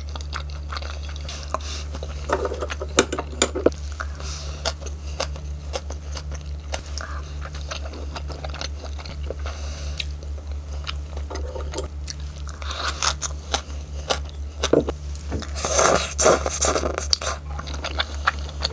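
Close-miked chewing and biting of mouthfuls of bibimbap rice, with small clicks and scrapes of chopsticks in a plastic bowl, over a steady low hum. The chewing comes in clusters, thickest about a third of the way in and again near the end.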